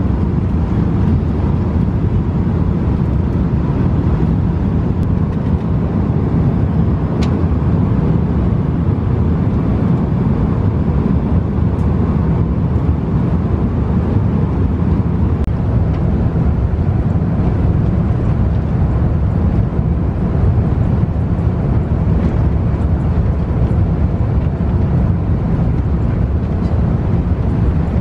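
Airliner cabin noise in flight: a steady, even, low rumble of engines and rushing air.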